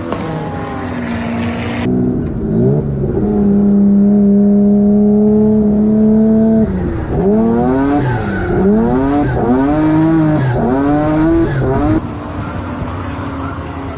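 Car engine at high revs: held steady for a few seconds, then dropping off and revving up and back down about once a second, five times, as the throttle is worked in a drift.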